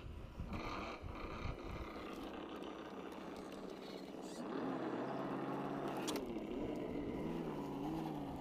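Electric motor and gears of a 1:10 RC scale crawler whining as it climbs a rock step, the pitch rising and falling with the throttle. Scattered low thumps come before the whine starts, and there is one sharp knock partway through.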